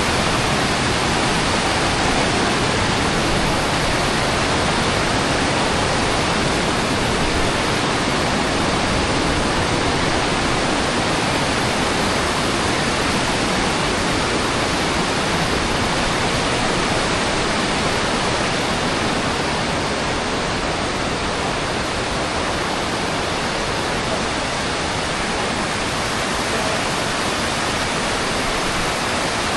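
Waterfall pouring close by: a loud, steady rush of falling water that keeps on without a break.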